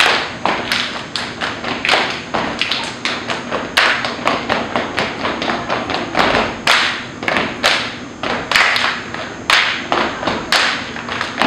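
Step dancers stomping on a hard floor and clapping and slapping their bodies in a syncopated rhythm: sharp beats two or three a second, each with a short echo.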